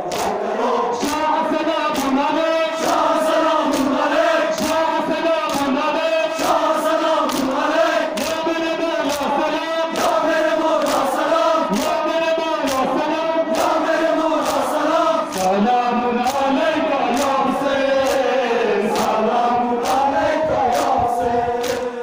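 A crowd of men chanting a Muharram lament (noha) in unison, with regular sharp beats from rhythmic chest-beating (matam), about one or two a second.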